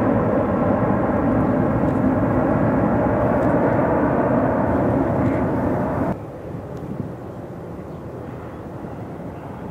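Boeing 747SP four-engined jetliner climbing out after takeoff: loud, steady jet engine noise with a low hum in it. About six seconds in it drops suddenly to a quieter, duller rumble.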